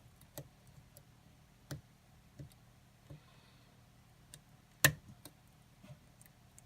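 Irregular light metallic clicks of a lock pick and tension wrench working the pins of a Kwikset pin-tumbler lock, about eight in all, with one sharper click a little under five seconds in.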